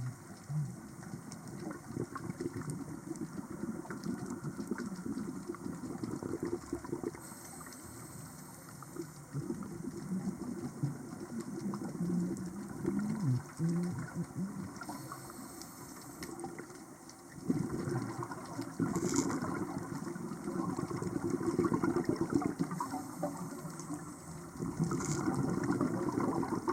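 Water bubbling and gushing in irregular surges, typical of scuba divers' exhaled breath bubbling up from their regulators. It swells louder for several seconds at a time, most strongly in the last third.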